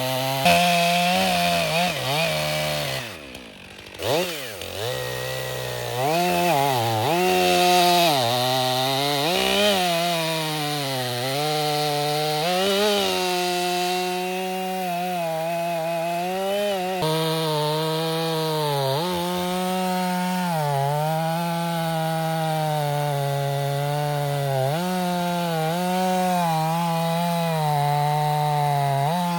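Stihl two-stroke chainsaw running while it is broken in, its engine pitch dipping and recovering over and over as it works. About three seconds in the engine nearly dies, then picks back up.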